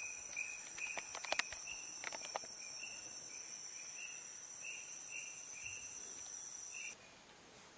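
Steady high-pitched chorus of rainforest insects, with a chirp repeating about twice a second and a few clicks in the first couple of seconds. It cuts off suddenly about seven seconds in.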